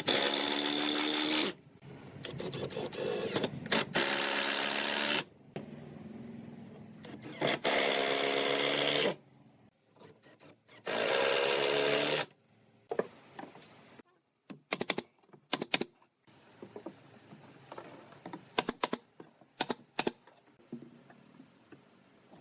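Power drill running in four short bursts, each about a second and a half. After that come scattered light clicks and knocks of wood being handled.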